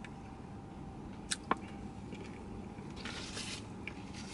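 Quiet mouth and chewing sounds of a person eating a biscuit in a car cabin: two short sharp clicks close together about a second and a half in, then a soft breathy hiss, over a faint steady hum.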